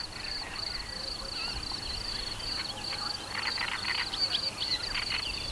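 Insects chirping steadily in a high, evenly pulsing trill. A few short chirps come in about three to four seconds in and again near the end.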